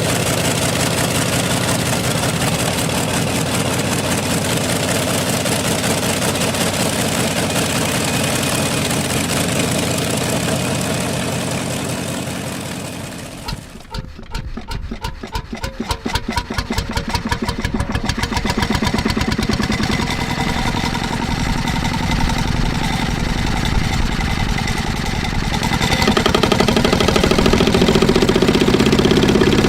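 An old engine running steadily; about halfway through, the sound drops away and an old engine starts, firing in separate beats at first, then running more smoothly and growing louder near the end.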